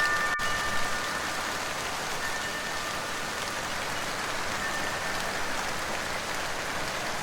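Steady rain, an even hiss, with a few wind chime tones ringing out over the first couple of seconds.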